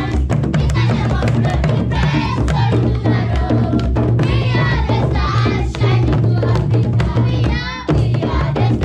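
Children singing together over live beating on large Ugandan hide-headed drums, struck with hands and sticks in a fast, driving rhythm.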